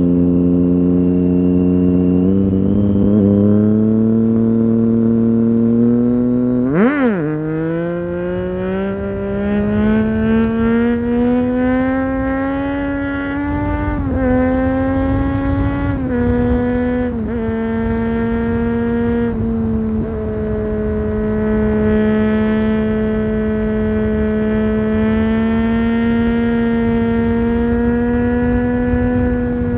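2009 Triumph Street Triple 675's inline three-cylinder engine through a LeoVince GP 3-2 aftermarket exhaust with its dB-killer fitted, heard from the rider's seat. A quick rev blip about seven seconds in, then the revs climb steadily, with a few sudden drops in pitch at the gear changes, before the engine settles to a steady cruise for the last ten seconds.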